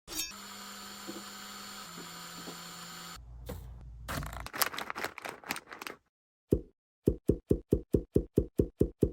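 Clicking and handling sounds from assembling a custom keyboard: a steady hum, then scattered clicks and rustling, then a quick even run of sharp clicks, about six a second.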